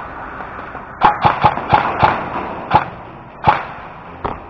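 Airsoft gun firing about eight single shots, each a sharp crack. Five come in quick succession about a second in, then three more spaced out toward the end.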